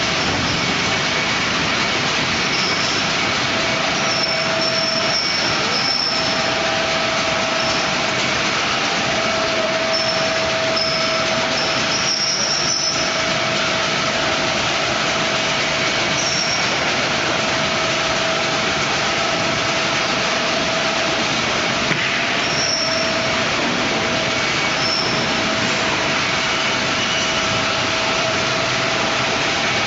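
Large waste-processing machinery running steadily: a continuous mechanical rumble and rattle with intermittent metallic squeals.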